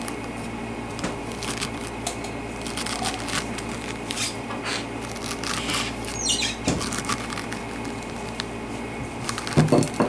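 Seeds and stringy pulp being scooped and scraped out of a halved raw spaghetti squash: scattered soft scrapes and clicks, with a few louder knocks near the end.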